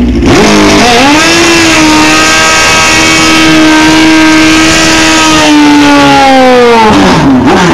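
Drag-racing motorcycle engine revved hard and held high during a burnout, spinning the rear tyre. Loud: the pitch climbs about a second in, holds steady for several seconds, then drops away near the end as the throttle comes off.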